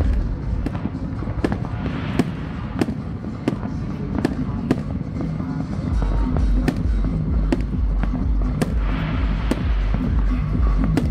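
Fireworks going off in an irregular string of sharp bangs and crackles, over loud music whose deep bass comes in strongly about six seconds in.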